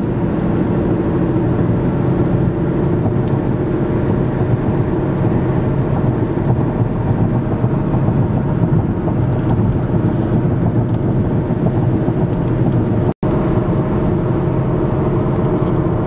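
Steady road noise heard from inside a car's cabin at highway speed: engine and tyre drone with a constant low hum. The sound drops out completely for an instant about thirteen seconds in.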